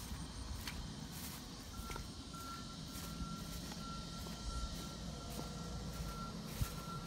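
A steady low rumble, with a thin high tone beeping on and off at an uneven rhythm from about two seconds in.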